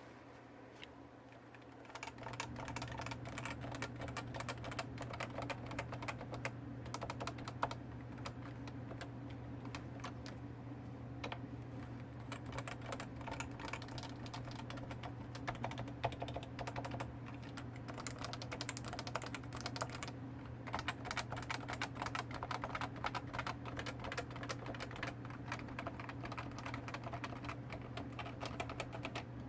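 Topre Realforce 104U keyboard with 45 g electrostatic capacitive switches and ABS keycaps being typed on fast and continuously. The typing starts about two seconds in.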